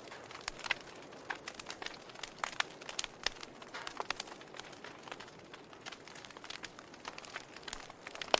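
Burning wood fire crackling: irregular sharp pops and snaps, several a second, over a soft steady hiss.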